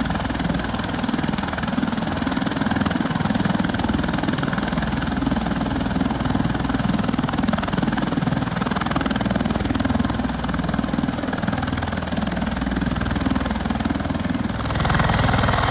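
Bell Boeing MV-22 Osprey tiltrotor running on the ground, its twin turboshaft engines driving both proprotors in helicopter mode: a steady low rotor-and-turbine drone. The sound grows a little louder and brighter near the end.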